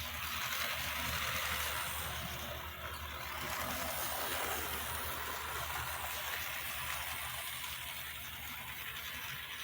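Rivarossi Bulletnose 4-6-4 Hudson model locomotive running on its track: a steady whir of its electric motor and freshly cleaned, greased gears, running smoothly.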